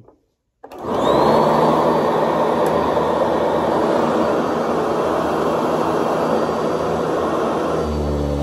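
Eureka The Boss 1934B upright vacuum cleaner switched on: its motor starts about a second in with a rising whine as it spins up, then runs steadily.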